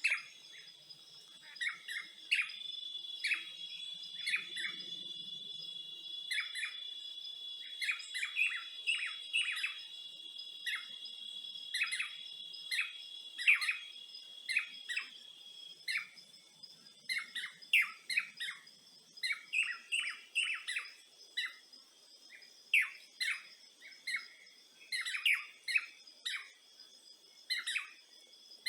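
Forest ambience: birds giving many short chirps, several a second at times, over steady high-pitched insect trills.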